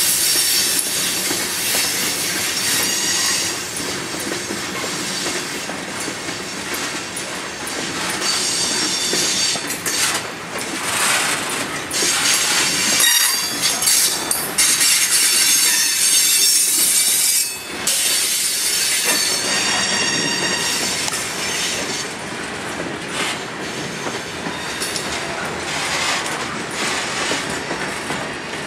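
Loaded coke hopper cars of a heavy freight train rolling past with a steady rumble of steel wheels on rail, and high, ringing wheel squeals that swell and fade several times.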